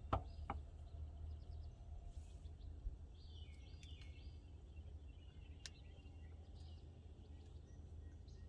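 Quiet lakeside ambience: a bird chirps a short run of notes about three seconds in, over a low steady rumble. A single sharp click near the start is the loudest sound.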